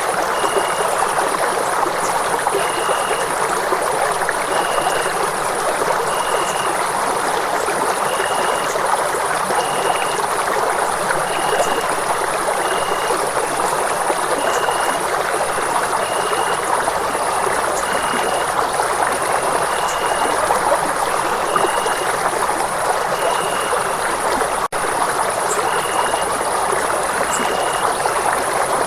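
Steady rushing of running water, like a stream or small waterfall. Short high tones repeat about every two seconds over it, and the sound drops out for a split second near the end.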